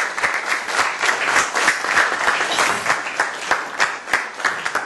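Audience applauding: many people clapping steadily, starting to thin out near the end.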